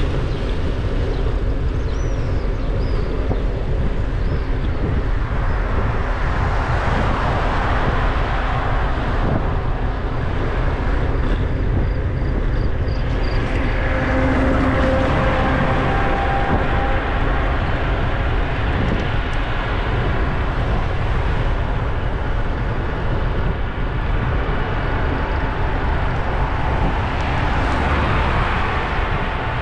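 Steady low wind rumble on the microphone and road noise from a moving vehicle, swelling and easing a few times.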